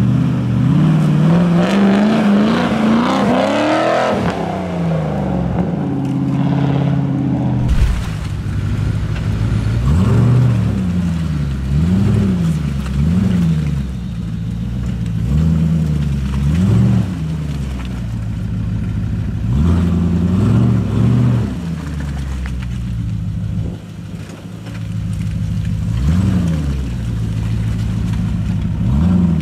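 Land Rover Discovery 2's V8 engine revving in repeated short bursts under load, its pitch rising and falling every second or two as the truck claws up a muddy slope.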